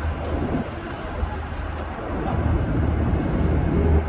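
Steady low rumble inside a moving Roosevelt Island Tramway aerial cabin as it rides its cables, growing a little louder near the end.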